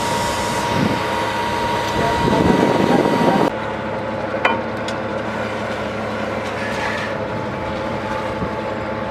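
Borewell drilling rig's engine running steadily, with a loud rushing hiss over it that cuts off suddenly about three and a half seconds in. The engine keeps running after that, with a few sharp metal clinks.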